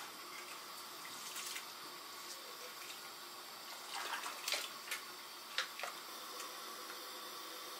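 Water splashing as it is poured from a metal bowl of rinsed rice into a pot. A few short, sharp sounds come between about four and six seconds in.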